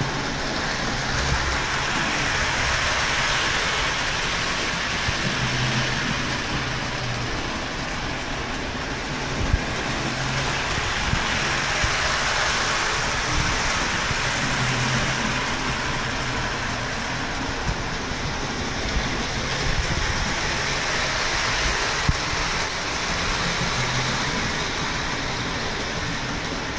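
Lionel Polar Express O-gauge model train running around a loop of track: a steady rolling whir of motor and wheels on the rails that swells and fades about every nine seconds as the train comes past, with a few light clicks.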